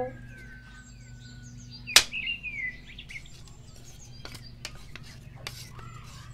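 A long knife blade chopping into a wooden plank: one sharp, loud chop about two seconds in, then a series of lighter knocks. Birds chirp in the background.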